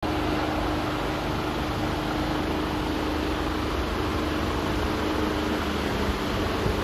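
Mercedes Actros 1842 tractor unit's Euro 6 diesel engine idling steadily, a low even rumble with a steady hum over it.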